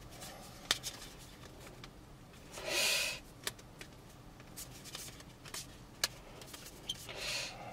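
Trading cards being handled and sorted, with scattered light clicks and taps. Two brief sliding rustles come about three seconds in and again near the end.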